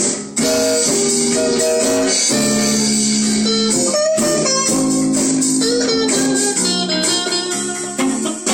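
Guitars jamming in a blues-rock style, mixing strummed chords and held single notes, with a brief break just after the start.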